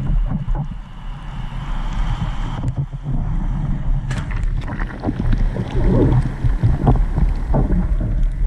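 Ocean surf breaking and water sloshing around a surfboard-mounted action camera, with a constant low rumble of wind and water on the microphone. About four seconds in, whitewater splashes over the board.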